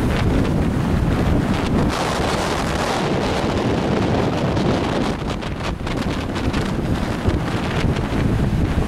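Wind buffeting the microphone in a loud, steady rumble, with sea surf washing on the shore underneath.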